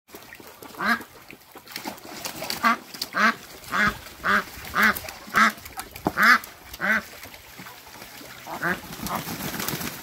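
Domestic ducks quacking: a run of about ten loud quacks roughly half a second apart, then a pause and two more near the end.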